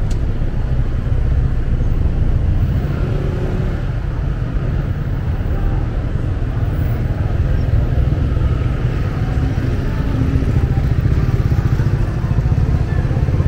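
Street traffic with motorbikes running past, a steady low rumble throughout.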